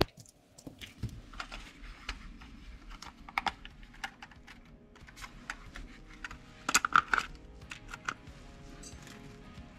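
Scattered light clicks and taps of small plastic parts being handled, with a louder cluster of taps about seven seconds in.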